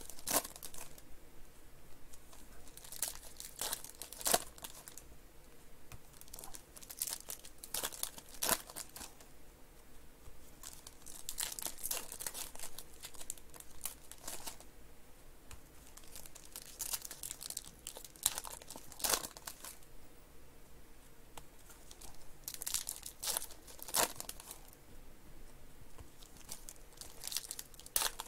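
Foil trading-card pack wrappers crinkling and being torn open by hand, in irregular spells of crackling with quieter stretches between.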